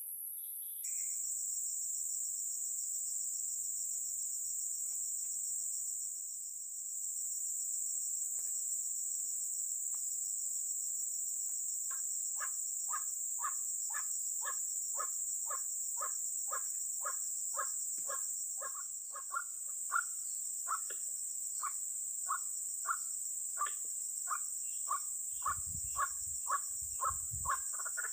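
Steady high-pitched insect chorus, joined about twelve seconds in by a white-breasted waterhen's call: a long run of sharp repeated notes, about two a second, getting louder toward the end.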